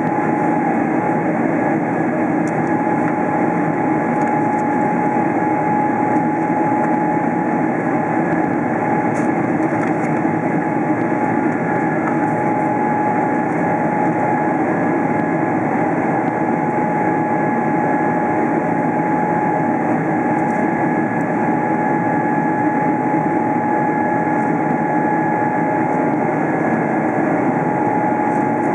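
Cabin noise of a Boeing 777-300 in flight: the steady rush of the jet engines and airflow heard from a seat beside the wing, with a constant engine whine on top.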